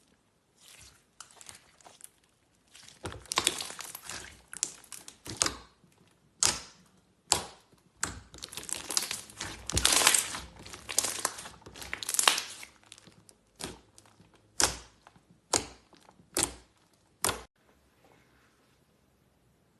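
Slime being squeezed and worked by hand. It makes a string of short, sharp sticky pops and clicks, thickest in the middle, then spaced out singly before stopping a couple of seconds before the end.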